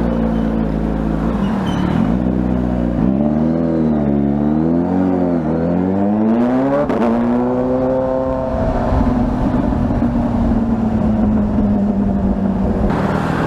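Car engine and exhaust revving under acceleration pulls: the pitch rises and dips a few times, climbs sharply about six to seven seconds in, then holds and slowly falls away.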